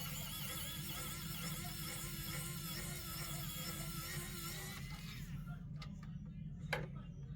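Small electric screwdriver whining as it backs out a screw, its pitch wavering slightly, stopping about five seconds in; a sharp click follows near the end.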